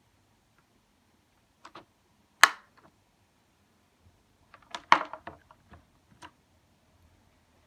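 A few separate sharp plastic clicks and knocks, with a quick cluster of them about five seconds in, from a mechanical keyboard being handled or its keys pressed.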